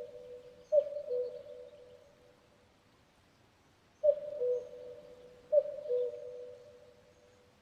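Common cuckoo calling its two-note "cu-ckoo", a higher note falling to a lower one, three times: once near the start, then twice in quick succession after a pause of about three seconds.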